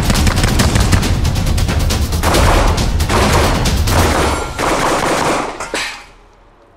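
Beretta 1301 Comp Pro 12-gauge semi-automatic shotgun firing in quick succession, the shots following close on one another and stopping about six seconds in.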